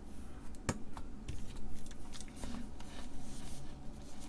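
Small clicks and taps of IC chips and a plastic IC carrier being handled on a workbench, with one sharp click just under a second in, then a pen scratching on paper.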